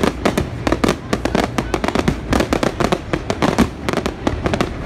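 Aerial fireworks going off in a dense, rapid barrage of bangs and shell bursts, several a second, with crackling between them.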